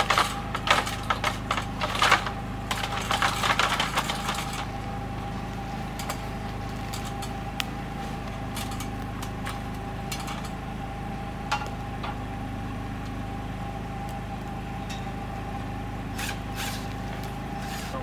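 Aluminium ladder clicking and rattling for the first four seconds or so as its adjustable legs are pulled out and set, then a steady low hum with a few single clicks as the ladder is climbed.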